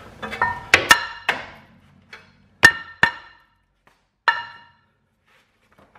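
A metal hammer striking a Ram 1500's cast-iron rear brake rotor, each blow ringing: a quick run of blows in the first second and a half, then three more spaced out. The rotor is being knocked loose from the hub, where it has seized and the parking-brake shoes drag inside it.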